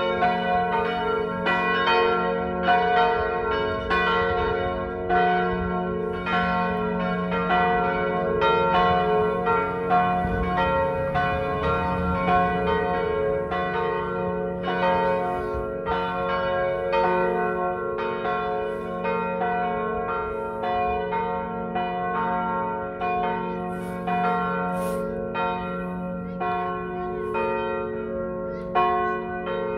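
Church bells swung in full peal: three bells tuned G-flat, B-flat and D-flat ring together, with strikes about twice a second in an uneven rhythm over their lingering hum.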